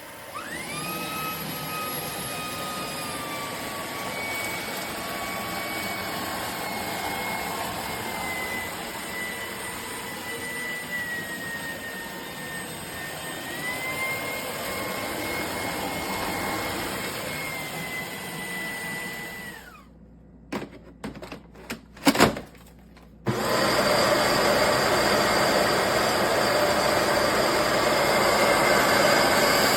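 A Shark cordless stick vacuum's motor spins up at the start and runs with a high whine that sags and climbs in pitch, then winds down about twenty seconds in. A few knocks and one sharp clack follow. Then a vacuum starts abruptly and runs steadily to the end.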